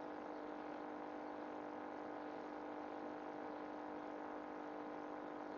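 Steady hum at one fixed pitch, unchanging throughout; the oil in the pan is not yet sizzling.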